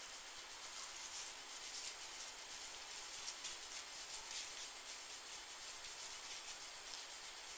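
Faint wet squishing and crackling of a raw ground beef and sausage meatball mixture being rolled between the palms, one hand gloved: soft irregular clicks over a steady hiss.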